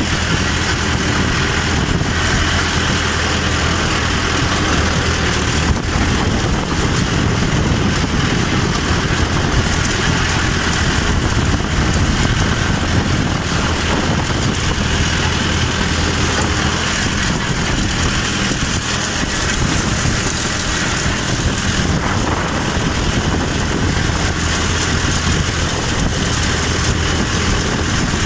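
Mahindra 595 DI Turbo tractor's turbocharged diesel engine running steadily under load while pulling a harrow, heard from the driver's seat beside the upright exhaust stack.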